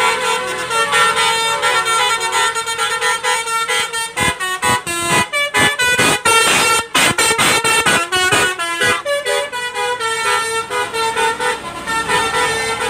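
A tour bus's Basuri multi-tone 'telolet' air horn playing a tune of changing notes. Around the middle it breaks into a rapid run of short stuttering toots, then goes back to longer held notes near the end.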